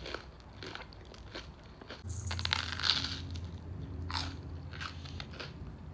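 Close-up biting and chewing of toasted sourdough, the crust crunching in crisp crackles.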